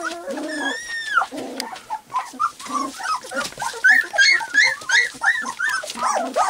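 Three-week-old white golden retriever puppies whimpering and yipping, several at once. A longer rising-and-falling whine comes about half a second in, and from about halfway through there is a quick run of short yips, a few a second.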